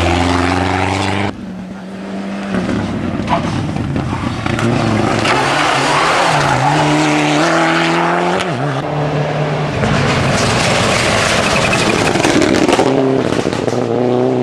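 Rally cars driving past one after another at speed, engines revving hard, the pitch rising and falling. The sound breaks off suddenly between cars, about a second in and again near ten seconds.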